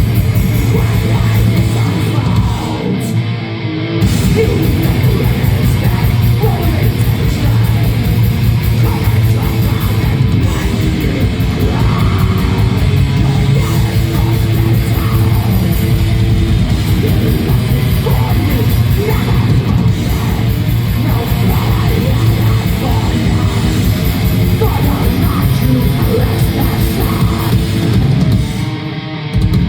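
Black metal band playing live, loud and dense, with the bass end briefly dropping out twice: about three seconds in and again near the end.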